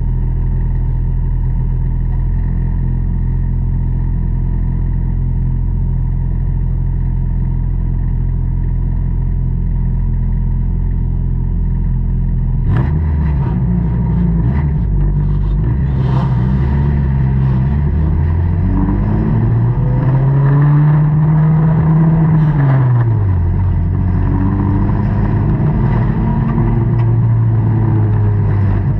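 Dirt-track race car engine heard from inside the cockpit, running steadily at low speed, then accelerating hard from about thirteen seconds in, its pitch climbing for several seconds before dropping off as the throttle is lifted and then holding steady. A few sharp knocks come as the acceleration begins.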